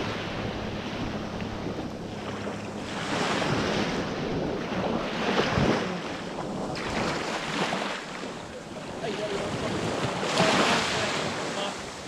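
Small waves breaking and washing up a sandy shore, the surf rising in a surge every two to three seconds, with wind rumbling on the microphone.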